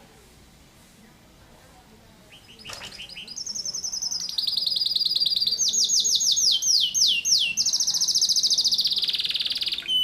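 Canary singing insistently, starting about two seconds in after a quiet pause: a long unbroken song of rapid-fire trills and quickly repeated falling whistled notes, set close together.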